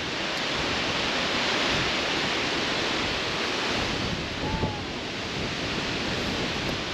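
Steady rushing hiss of a tall waterfall's water and spray pounding down at the base of the fall.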